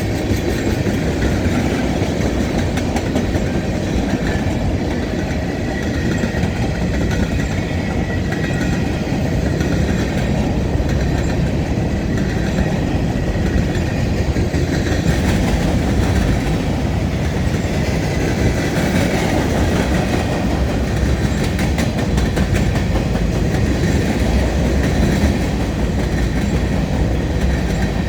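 CSX freight train rolling past, steel wheels clicking over the rail joints under a steady rumble.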